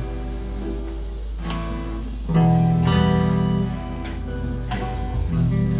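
Hollow-body electric guitar played through an amp: strummed chords and single notes, with a louder low chord held about two seconds in.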